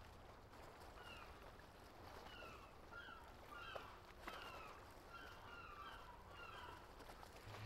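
Faint calls of distant birds, about a dozen short falling calls in quick succession over a low outdoor hiss.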